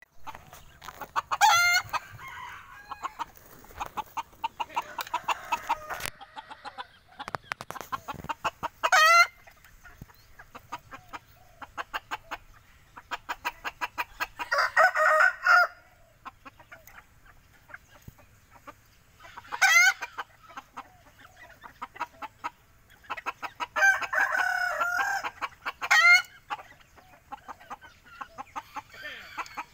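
Chickens in a pen: quick runs of clucks go on and off, with a few short, sharp rising calls. A Rosecomb bantam rooster crows about twice, each crow lasting a second or two.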